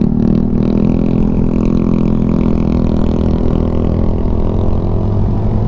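CF Moto 300SR's single-cylinder engine running steadily while riding, with low wind rumble on a mic inside the helmet, visor closed.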